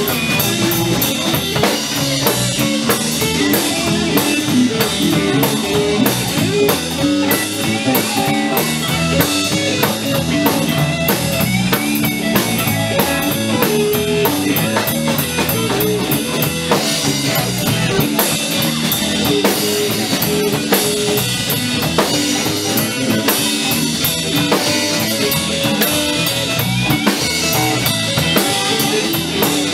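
Live blues band playing: electric guitars over a drum kit keeping a steady beat.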